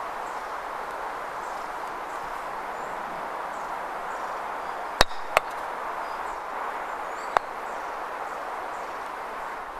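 Croquet mallet striking a ball in a jump shot: one sharp crack about halfway through, a second click less than half a second later, and a fainter click about two seconds after. Steady outdoor background hiss with faint birdsong.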